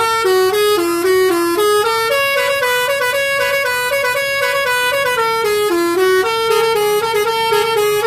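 Basuri telolet musical horn on a bus playing a loud, fast tune of short stepped notes with no break. The tune climbs to a higher pitch about two seconds in and drops back down past the middle.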